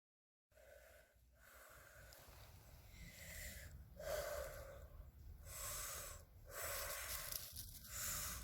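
A boy breathing deeply and audibly, several slow breaths in and out, each a soft rushing swell.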